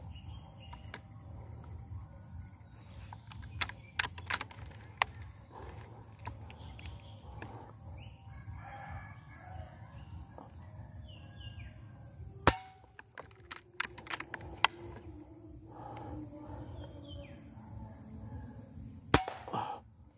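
Birds calling over a low steady rumble, broken by scattered sharp clicks and knocks, the loudest about twelve and nineteen seconds in.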